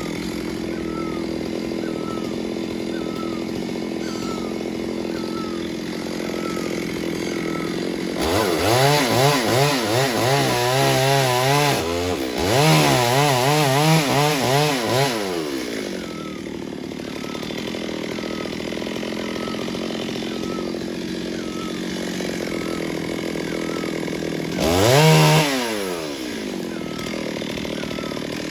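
Two-stroke chainsaw idling, revved up and down several times between about 8 and 16 seconds in, then revved once more briefly near the end.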